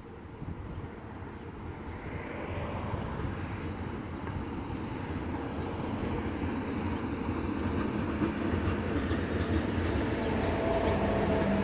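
Locomotive-hauled passenger train passing, its rumble growing steadily louder as the coaches roll by on the rails.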